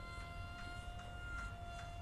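Electric brushless motor and small cut-down propeller of a radio-controlled F-22 Raptor jet model in flight: a steady high whine. Strong wind rumbles on the microphone underneath.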